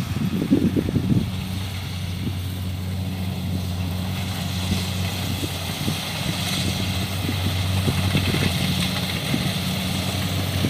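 Kubota DC-70 combine harvester running steadily with an even engine hum and a hiss from the working machinery, with a few knocks in the first second or so.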